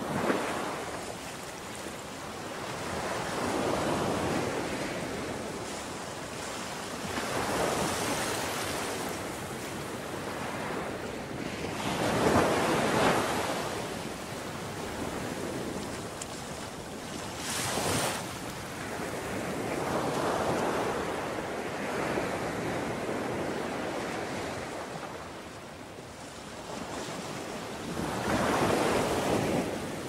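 Ocean waves breaking and washing onto a beach, each surge swelling and fading over a few seconds. The loudest wave comes about twelve seconds in.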